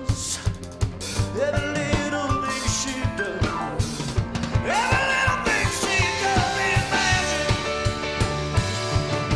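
Live rock band playing: a drum kit keeps a steady beat under electric guitar and bass, with a man singing lead.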